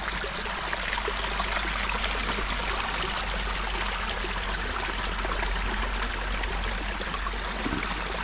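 Stream running steadily: a constant rush of running water with no pauses or changes.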